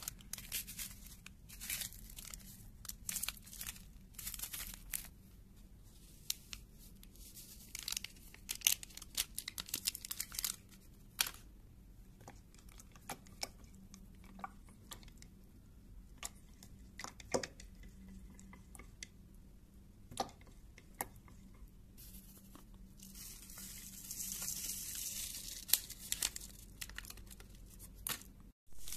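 Paper sachets of instant coffee and creamer being handled, crinkled and torn open, with scattered sharp clicks and taps as a wooden stirrer works in a ceramic mug. A longer rustle runs for a few seconds about three quarters of the way through.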